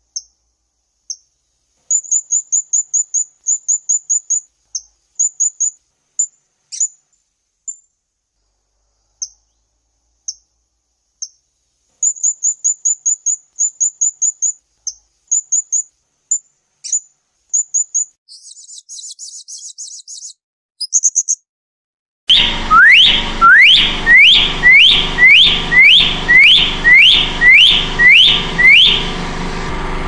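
Blue-crowned hanging parrot giving thin, very high tsit calls, singly and in quick runs, with a brief buzzy chatter. About two-thirds of the way in, a different recording with a steady hiss takes over: a Nias hill myna gives loud, sharply rising whistles, about three every two seconds.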